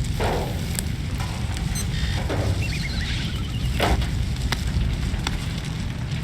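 Sound effects from the opening of a music video: a steady low rumble with scattered sharp clicks and crackles, and a short run of quick high beeps falling in pitch about halfway through.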